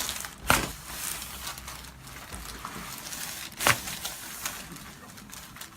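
Two sharp knocks, about half a second in and again a little over three seconds later, with faint rustling between them, from a patient shifting and settling on a chiropractic treatment table.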